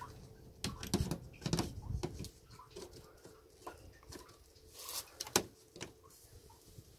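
Light plastic clicks and knocks as a Volkswagen front emblem is handled and pressed onto its round mount in a Golf VI grille, with the sharpest click about five seconds in.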